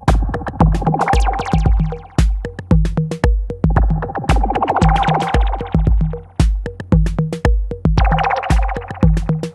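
Behringer RD-8, an analog 808-style drum machine, playing a minimal electro beat: a deep kick on every beat, a little over two a second, with sharp hi-hat and clap hits and a ringing two-note tone that swells and fades.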